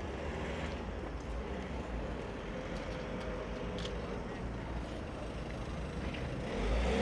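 White Citroën Berlingo van driving slowly past at low speed, its engine and tyres a steady low rumble that grows louder about six and a half seconds in as the van comes close.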